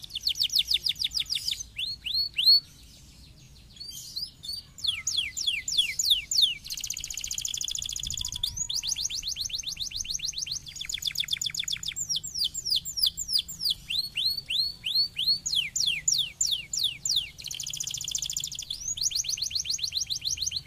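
Domestic canary singing a long song of rapid trills, each phrase a fast run of repeated high notes, changing to a new trill every second or two, with a brief pause about three seconds in.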